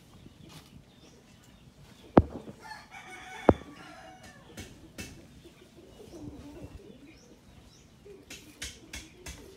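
A rooster crowing once, about two seconds in, overlapped by two sharp knocks about a second and a half apart, the loudest sounds here. Near the end there are quick light clicks.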